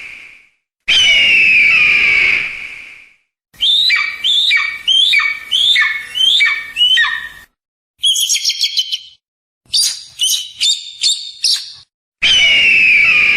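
Bird-of-prey calls, given as a kite's (chil): a long high scream that fades away, then a run of about seven falling whistled notes, then two bursts of fast high chattering, and another long scream near the end. The calls come as separate clips with short silences between them.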